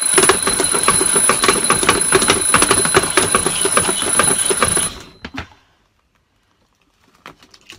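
Twin-bell mechanical alarm clock ringing with a fast, loud clatter, together with a motorised wake-up contraption whirling an arm. It stops abruptly about five seconds in, and a few faint clicks follow.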